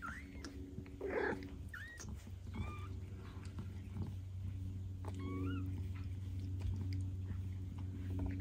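Kitten mewing: about five short, high-pitched mews that bend in pitch, three in the first three seconds and a pair about five seconds in. Under them runs a steady low hum, with a brief rustle about a second in.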